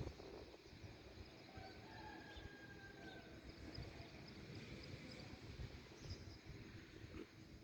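Near silence: faint outdoor background noise with a few faint, thin steady whistles and small chirps.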